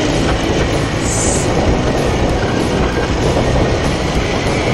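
Small four-wheeler (ATV) riding along a rough dirt trail: steady engine noise mixed with continuous rattling and rumble from the bumpy ground, heard close up from the handlebars.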